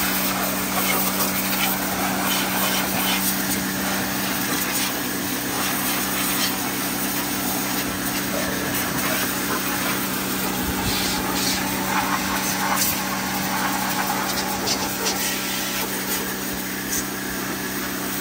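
Pressure washer running: the pump motor gives a steady hum while the water jet hisses and spatters against the brake disc, hub and engine-bay metal.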